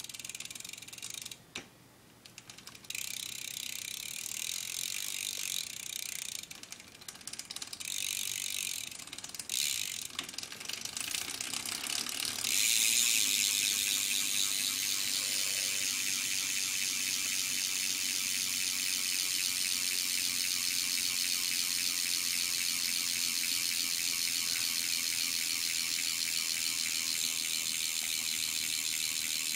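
BMX cassette hub (Nitrous) freewheeling: the pawls ratchet in a fast buzz of clicks. It comes in short spells that start and stop for the first twelve seconds or so, then runs steadily and louder.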